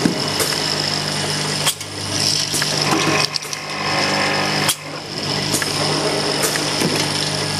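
Two-head bottle filling and capping line running: a steady motor hum with constant mechanical rattling and clicking, and a sharp clack roughly every three seconds, at the start, just under two seconds in, and near five seconds in.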